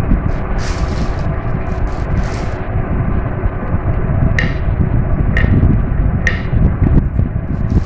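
Marbles rolling down a marble-run track with a continuous loud rumble, and three sharp clicks of marbles striking each other or the track, about a second apart in the second half.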